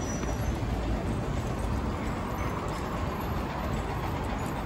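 Steady traffic rumble at a bus terminal, with city buses running and pulling around the turning loop.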